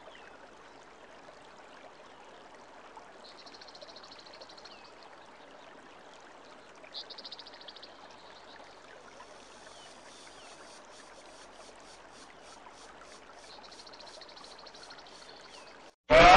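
A waterfall rushes steadily, a rough, even wash of falling water, while a faint high buzzing comes and goes in short spells. Loud electronic music cuts in abruptly at the very end.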